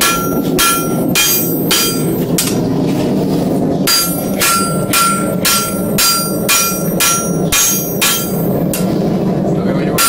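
Hand hammer striking a red-hot steel sword blade on an anvil: sharp blows about two a second, each with a ringing note, broken twice by a short pause.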